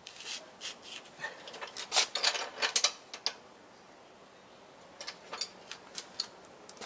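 Irregular clicking and clinking of hand tools and metal parts while a motorcycle wheel is being refitted, busiest in the first three seconds, then a few scattered clicks near the end.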